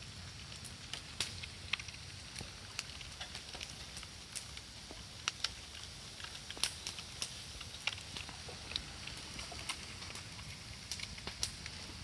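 Bonfire of burning moso bamboo crackling, with irregular sharp pops and snaps scattered throughout, several a second and now and then a louder one.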